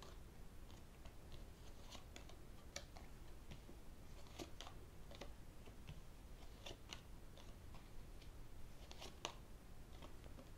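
A deck of fortune-telling cards being handled: shuffled in the hands and dealt onto a cloth table mat, giving soft, irregular crisp clicks and card snaps, a little busier about four to five seconds in and again near the end.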